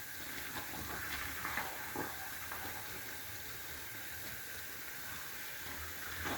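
Pot of beans steaming on the fire: a steady low hiss, with a few faint knocks in the first two seconds.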